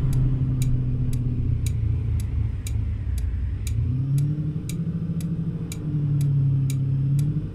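Car turn signal clicking steadily, about two ticks a second, over the hum of the car's engine and road noise heard from inside the cabin. The engine note dips and climbs again around the middle as the car slows for the turn and pulls away.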